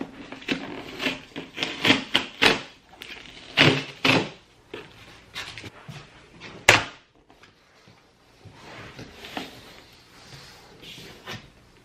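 Cardboard shipping boxes being handled and opened: a run of knocks, scrapes and rustles, with one sharp knock about seven seconds in.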